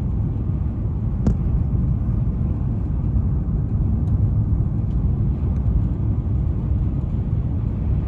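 Steady low rumble of a car driving along a cleared road, tyre and engine noise, with one short click about a second in.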